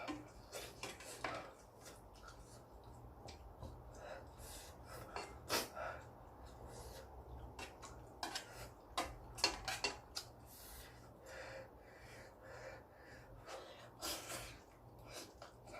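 A person eating very spicy ramen: sniffling and breathing hard, with utensils clicking against the bowl in short, scattered sounds. The sniffling comes from a runny nose brought on by the heat of the noodles.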